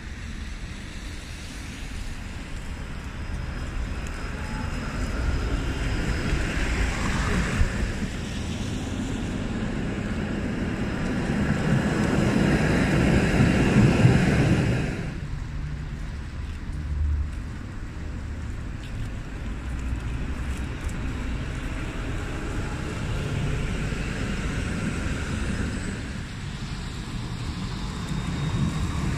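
Street tram traffic: an older red high-floor tram of the Konstal 105N type rolls past close by. Its rumble and wheel noise swell to the loudest point about halfway and then drop away suddenly. After that, steadier road and tram noise follows, with wind rumbling on the microphone.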